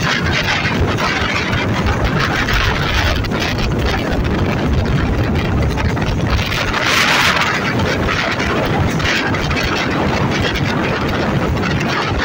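Alsthom diesel locomotive 4135 running under way, pulling a train, with the steady rumble and clatter of the moving train and wind. A brief louder hiss swells about seven seconds in.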